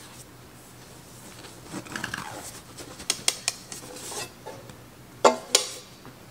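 Bread machine's metal baking pan being handled and turned over to tip out the risen dough: a few light taps around the middle, then two sharp knocks about a second before the end.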